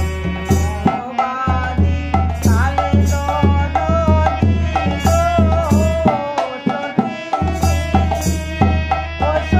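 Sylheti dhamail folk song: a hand drum keeps a steady, quick rhythm with deep bass strokes under a wavering melody line. The deep drum drops out briefly twice.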